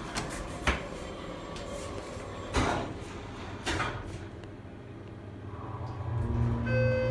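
Elevator door-close button clicked, then the car doors slide shut with a thud about two and a half seconds in. About six seconds in, the Schindler hydraulic elevator's pump motor starts with a steady low hum as the car rises, and a short beep sounds near the end.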